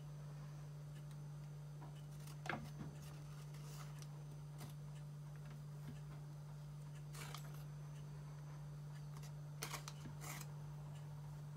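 Metal spoon scooping a thick creamy sauce from a plastic tub and spreading it over rolled pizza dough on parchment paper: a few soft scrapes and taps, the loudest about two and a half seconds in and again near ten seconds, over a steady low hum.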